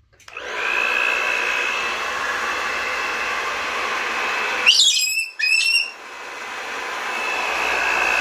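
Handheld hair dryer running with a steady high whine, blowing on a wet cockatoo. About five seconds in the dryer noise drops away and the cockatoo gives a short, loud screech in two bursts, then the dryer noise builds back up.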